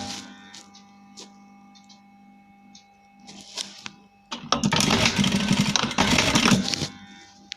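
Simaru SM-9800M sewing machine stitching in one burst of about two seconds, starting a little past halfway. Before it there is a quiet stretch with a faint steady hum and a few small clicks.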